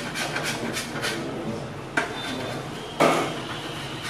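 Utensils working in a bakery: quick rhythmic scraping or tapping strokes, about four a second, then two sharp knocks about a second apart, the second the loudest, over a steady low hum.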